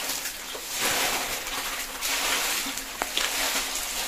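Muddy water splashing and sloshing in surges around a net crowded with live snakehead fish thrashing in the shallows.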